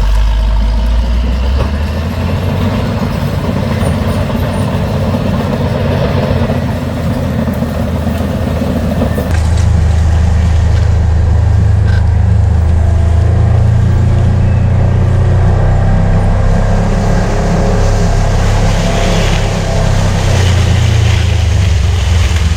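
The diesel engine of a 200 hp bulldozer running steadily, with a shift in its sound about nine seconds in.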